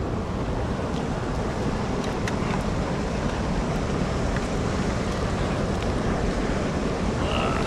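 Rushing river water in a strong current, a steady even noise.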